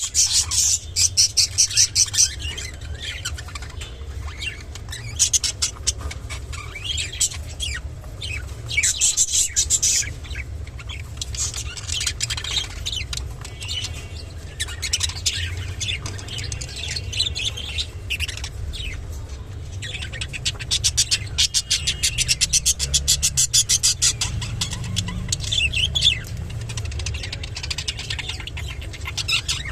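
Budgerigar chatter: rapid runs of high chirps and clicks coming in bursts, over a steady low hum.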